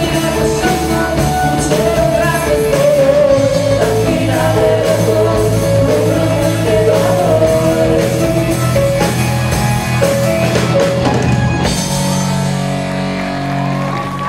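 Live rock band playing: drum kit, electric guitar, bass guitar and keyboard, with female vocals. About twelve seconds in, the singing and cymbals stop and a held chord rings on, growing quieter near the end as the song closes.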